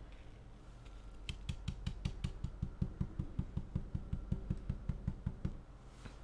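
Dome stencil brush stippling straight up and down through a plastic stencil onto a ridged door mat: a quick, even run of soft taps, about five a second, starting about a second in and stopping shortly before the end.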